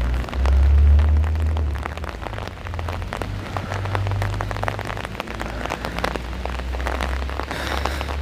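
Rain falling on an umbrella overhead, heard as many sharp drop hits, with gusty wind rumbling on the microphone, the strongest gust about a second in.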